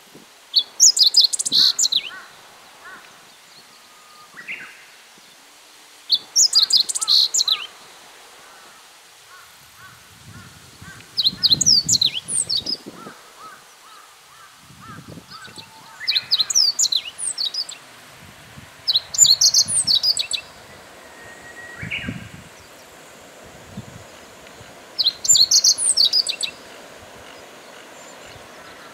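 Meadow bunting singing: six short, rapid song phrases of high, quick notes, each lasting about a second and a half, repeated every few seconds.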